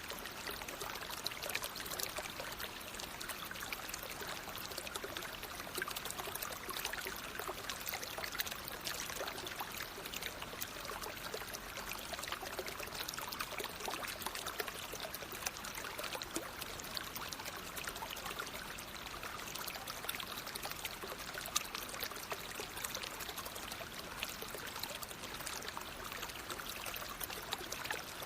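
Naturally flowing water: a steady, even splashing rush full of tiny crackling splashes.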